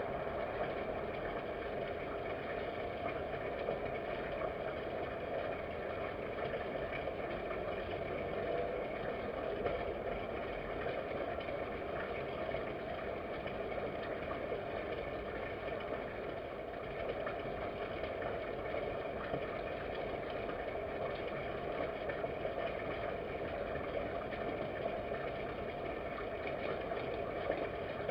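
Steady, unchanging background drone and hiss with no distinct events.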